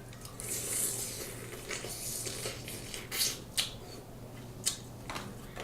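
Snow crab legs being eaten by hand: a rustling near the start, then several short, sharp cracks as the shells are broken open.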